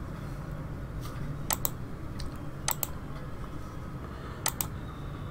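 Computer mouse clicking: a few sharp paired clicks spaced about a second apart, over a low steady background hum.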